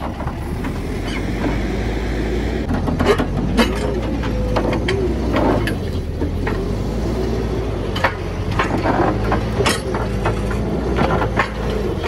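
A vehicle engine running steadily, with a scatter of sharp knocks and rattles over it.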